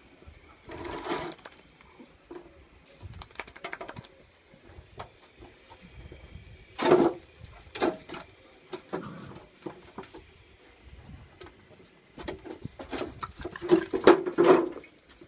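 American Staffordshire Terrier puppies yapping and growling as they play-fight, in short scattered bursts with a cluster of the loudest yaps near the end.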